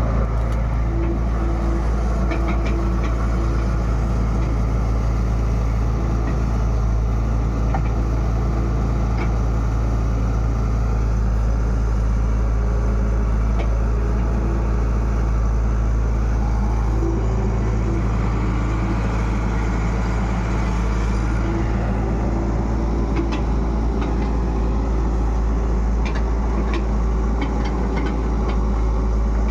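Diesel engine of a TATA Hitachi EX70 excavator running steadily, heard from the operator's seat, with a higher tone that comes and goes and a few light clicks.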